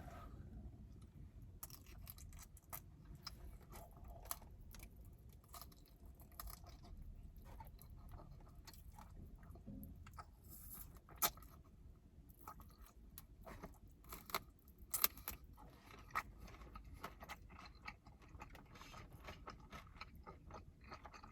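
Close-miked chewing and biting of sticky fried chicken wings: a run of soft wet clicks and crunches, with two sharper clicks near the middle.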